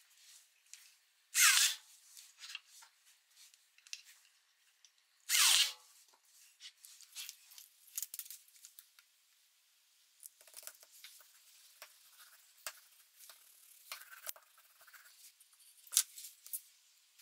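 Two quick rips of a paper or tape strip being pulled away, about four seconds apart, then small clicks and rustles of handling and a sharp tap of plywood set down on a cutting mat near the end.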